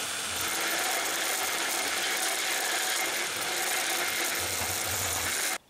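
Cordless drill boring through flat steel bar, running steadily under load, then cutting off abruptly near the end.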